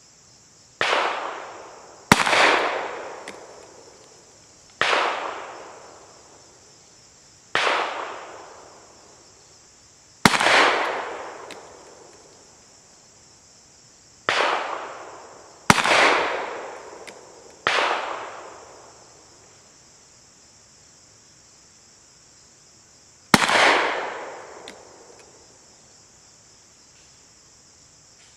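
A Webley Mk VI revolver, its cylinder shaved for .45 Auto Rim, firing a string of single shots of lead semi-wadcutter handloads. The shots come one to several seconds apart, each a sharp report trailing off in echo. A steady chirr of crickets runs underneath.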